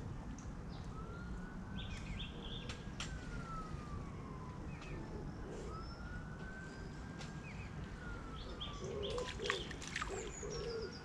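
Faint emergency-vehicle siren wailing, its pitch slowly rising and falling about every four to five seconds, with small birds chirping. Near the end a pigeon coos.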